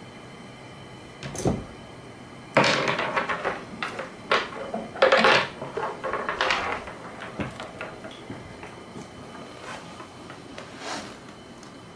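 A small object clattering and rolling across a wooden floor and knocking against a wooden cabinet as a cat bats it about. A single knock comes about a second in, a quick flurry of knocks and rattles follows from about two and a half to seven seconds, and then come a few lighter taps.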